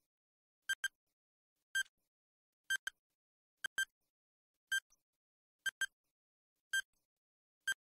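Countdown timer sound effect ticking about once a second, each tick a short, sharp, pitched click, some doubled, with silence between.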